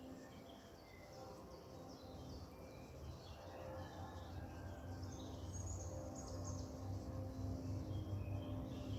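Several birds chirping and whistling in short calls, overlapping throughout. Beneath them a low rumble grows gradually louder.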